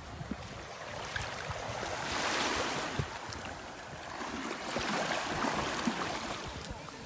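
Small sea waves washing in over the shallow shoreline, swelling twice.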